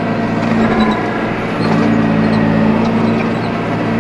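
Tractor engine running steadily, with a low even drone; the drone weakens briefly about a second in, then comes back.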